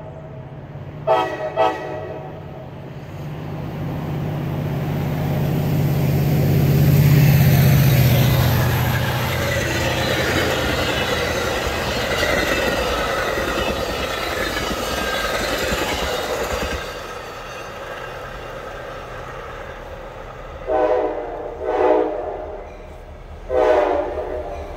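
Metra train horn sounds two short blasts. Then a bilevel commuter train passes at speed with a rush of wheel noise and blowing snow, swelling to a peak about eight seconds in and fading, with a low drone under the loudest part. Near the end a horn sounds three blasts as a pair of Metra locomotives approaches.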